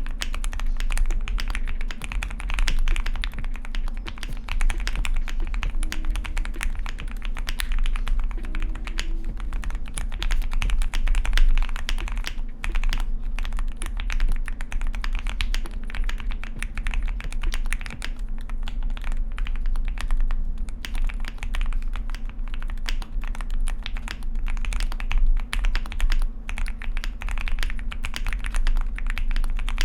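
Continuous fast typing on a QK100 mechanical keyboard with Gateron Oil King linear switches: a dense, unbroken run of keystroke clacks, over a steady low hum.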